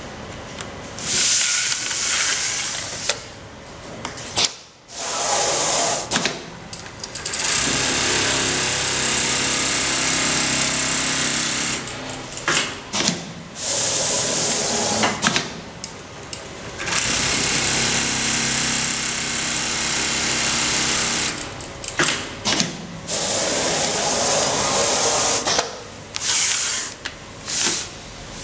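Automatic template sewing machine stitching a jacket's back-and-side seam, running in long steady stretches broken by short bursts of hiss and sharp clicks.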